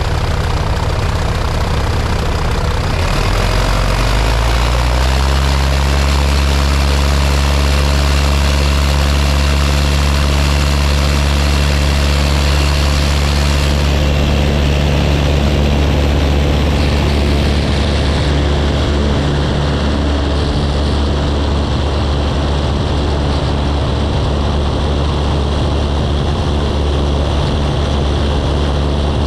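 Propeller-driven light aircraft engine running loud and steady; its pitch climbs about three to five seconds in as power comes up, then holds at an even drone.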